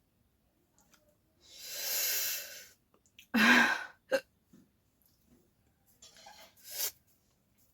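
A woman breathing hard through her mouth against the burn of very spicy food: a long breathy hiss, then a sudden, louder voiced hiccup about three and a half seconds in, and fainter breaths near the end.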